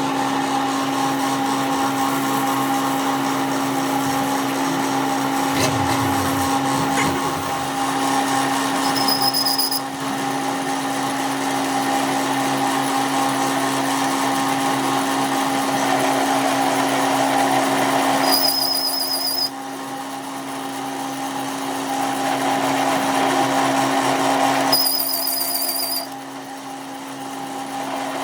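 A workshop machine or power tool running with a steady hum, with a harsher cutting noise over it that drops away and comes back three times.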